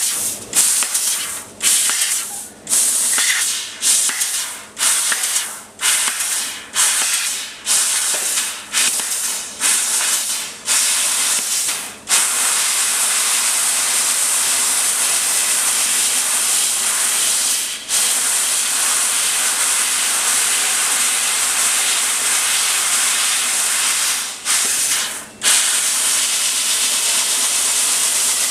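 Fiber laser cutting head cutting 1 mm stainless steel sheet, its assist gas blowing through the nozzle as a loud high hiss. For the first twelve seconds the hiss starts and stops in short bursts, a little more than once a second; then it runs steadily, with two brief breaks, one around eighteen seconds in and one near the end.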